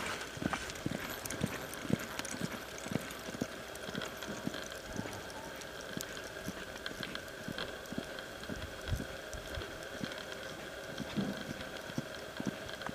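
Quarter horse's hooves loping on soft arena dirt: a steady rhythm of dull thuds, roughly two a second, over a faint steady hum.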